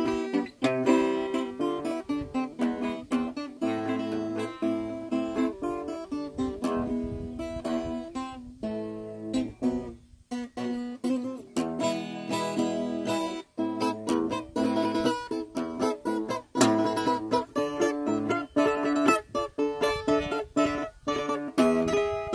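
Background music: plucked acoustic guitar playing a melody, with a short break about ten seconds in.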